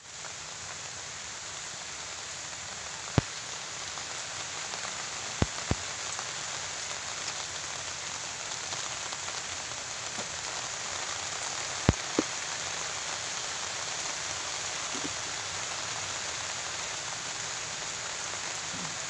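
Steady rain falling and pattering on surfaces, with a few short, sharp clicks scattered through it.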